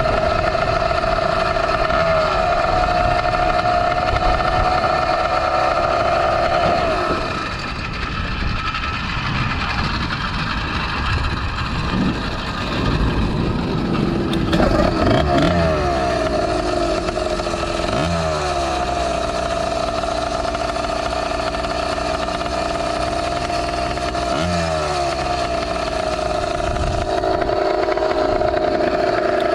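Zeda 80 two-stroke bicycle engine running at high revs under way, with wind rumble. About a quarter of the way in the revs drop off for several seconds, then pick up again with a few rising revs before holding steady.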